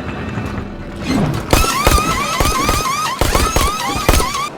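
Pit-stop sound effects: a pneumatic impact wrench zipping in quick repeated rising whirs, about three a second, with sharp knocks and clatters as the wheels are changed.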